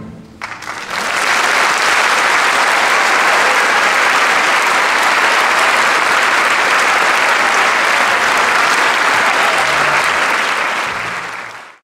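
Audience applause: a few scattered claps, then within a second steady, dense clapping that fades out near the end.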